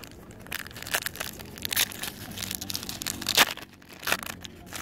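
Foil Pokémon booster pack wrapper crinkling and tearing open in the hands, a run of sharp crackles, the loudest about three and a half seconds in.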